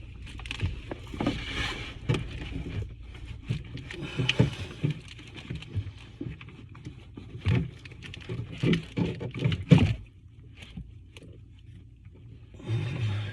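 Irregular knocks, clicks and scrapes of an old bathtub drain and overflow pipe assembly being worked loose and pulled out by hand, the sharpest knock about ten seconds in, then quieter.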